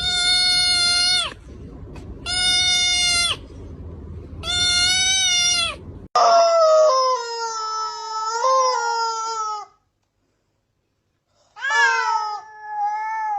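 Cat meowing: three even, steady-pitched meows about a second long each, then a long drawn-out lower meow of about three and a half seconds, a pause, and another long meow near the end.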